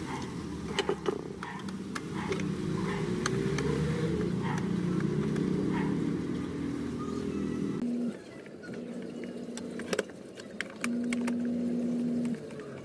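Light clicks and taps of a screwdriver and hands on a plastic portable radio case, over a low rumble that drops away about eight seconds in; after that a steady low hum comes and goes.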